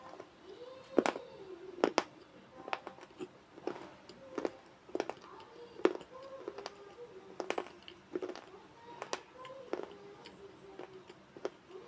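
Gurudev slate pencil being chewed: sharp crunches about once a second as the pieces are bitten and ground between the teeth.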